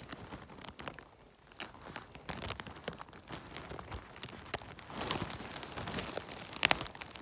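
Rustling and crackling of leaf litter, moss and twigs on the forest floor being handled or trodden, with scattered sharp clicks and crunches. The sharpest snap comes near the end.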